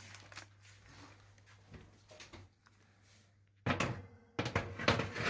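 A few faint handling clicks, then from about three and a half seconds in a run of sharp knocks and clattering thuds from kitchen items being handled.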